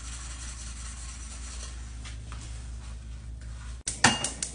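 Low steady hum with faint rubbing at first. Near the end comes a quick cluster of sharp knocks and a brief metallic ring as a small aluminium saucepan is handled on a gas stove burner.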